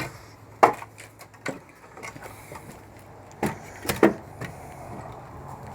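A few sharp knocks and clunks of objects being handled and set down, two of them close together near the middle, over a faint steady low hum.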